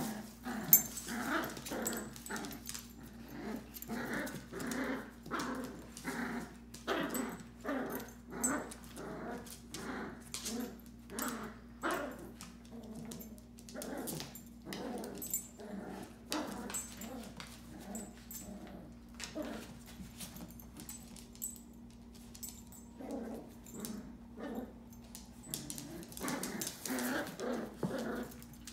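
Two small dogs play-fighting over a toy, growling in a run of short growls, one or two a second, among light clicks. The growling eases for a few seconds past the middle and picks up again near the end.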